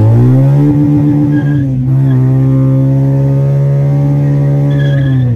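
1986 Toyota Corolla's four-cylinder engine, fitted with a modified, heavy-sounding exhaust, holding steady revs under power, with a brief dip about two seconds in and a drop at the end.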